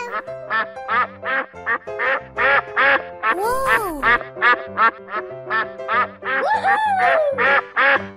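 A cartoon duck quacking over and over, about three quacks a second, over cheerful background music. Twice a longer quack rises and falls in pitch.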